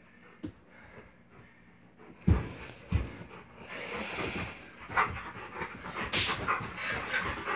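Bouvier dog panting and scuffling during rough play-fighting with a person, with two sharp thumps about two and three seconds in.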